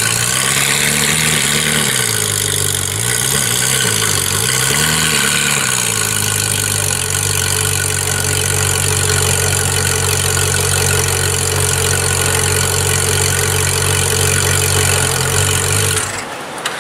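Ferrari 458 Italia's 4.5-litre naturally aspirated V8 at the exhaust, rising and falling in pitch a few times with light throttle blips, then settling to a steady idle. It fades out near the end.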